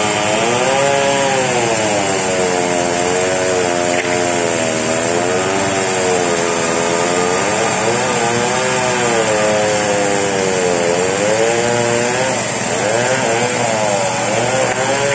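Chainsaw running at full throttle under load, cutting lengthwise into a very large merbau log. The engine pitch rises and falls every second or two as the chain bites into the wood.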